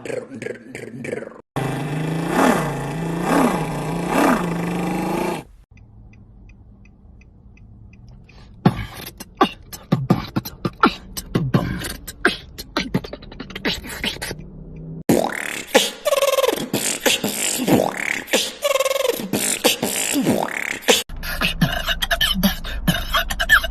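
Beatboxing: a run of short vocal-percussion clips cut together, with a held, wavering pitched bass tone in one part and fast mouth clicks, snares and pitched vocal sweeps in others. The clips change abruptly several times.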